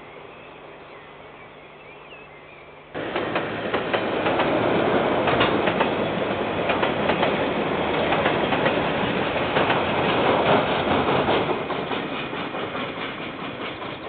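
KiwiRail container freight train passing: wagons rolling over the rails with a dense clatter of wheel clicks. It starts abruptly about three seconds in and eases off near the end.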